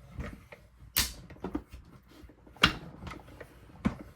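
Plastic cutting plates and a metal die being handled and rolled partway into a manual die-cutting machine: sharp clicks and knocks, with three louder ones about a second, two and a half and four seconds in.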